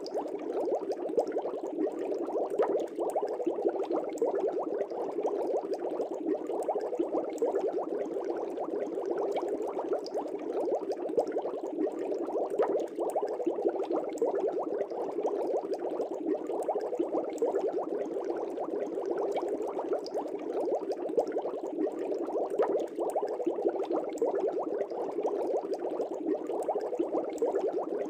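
Aquarium air bubbles bubbling steadily, a dense run of tiny pops with no break.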